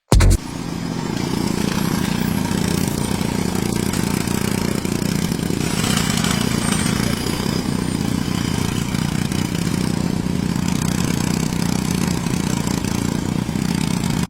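Small DC gear motors of a homemade model drilling rig running steadily. They start with a sharp click and come up to a steady hum within about a second.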